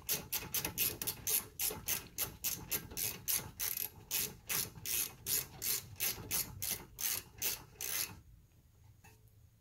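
Hand ratchet wrench clicking steadily, about four clicks a second, as a rear brake caliper bolt is tightened; the clicking stops about eight seconds in.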